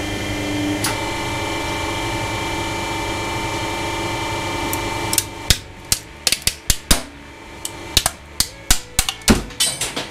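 Hydraulic press running with a steady pump hum for about five seconds. Then a rapid run of sharp plastic cracks and snaps as the ram crushes a hollow plastic action figure, with the heaviest bang near the end as the figure gives way.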